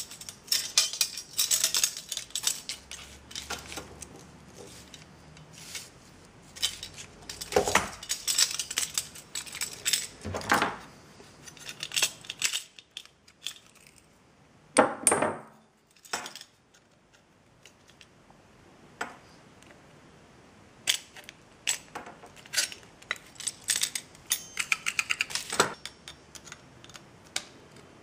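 Small metal parts and hand tools clinking and clattering on a wooden desk as a belt-tensioner bracket, bushings, washers and a thin sheet-metal strip are handled, with a louder rattle about halfway through and a dense run of clicks later on.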